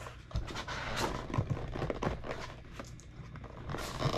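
Handling noise from an Akaso V50 Pro action camera being tugged and twisted on the cardboard packaging insert it is fixed to tightly. Soft cardboard rustles come with a few light knocks.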